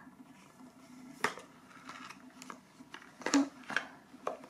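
Hands handling an iPhone box and lifting the phone out of its cardboard tray: a few soft taps and rustles of cardboard and plastic wrap, the largest about three seconds in, over a faint steady hum.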